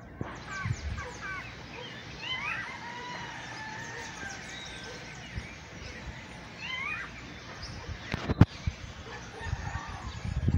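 Several birds chirping and calling, short quick chirps mixed with a few longer calls, over a steady background hiss. A single sharp click about eight seconds in.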